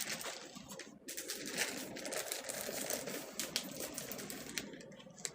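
Newspaper pages rustling and crackling in irregular bursts as they are handled and turned.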